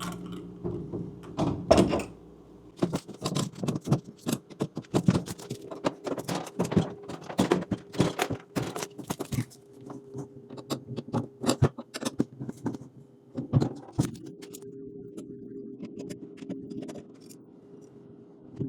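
Irregular clicks and light knocks of refrigerator hinge parts and the door being handled and fitted into place, over a steady low hum.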